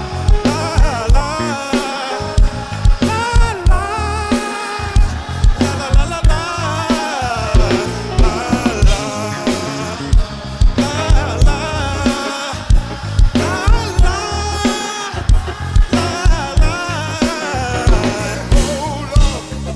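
Live gospel music: a men's chorus singing with a band, the drum kit keeping a steady beat.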